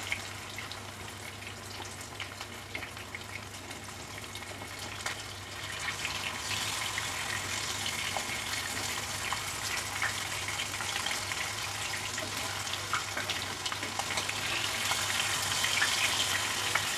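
Vanjiram (seer fish) steaks shallow-frying in a little oil in a nonstick pan: a steady sizzle with small crackles and pops, growing louder about six seconds in as the pieces are moved with a wooden spatula to be turned.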